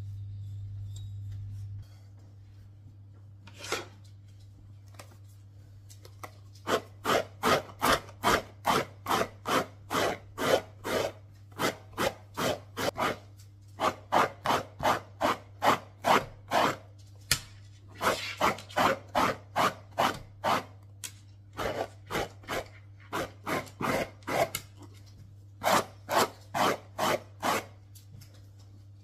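Rhythmic rasping strokes, something rubbed or scraped back and forth by hand, about two a second in runs with short pauses. A steady hum stops about two seconds in.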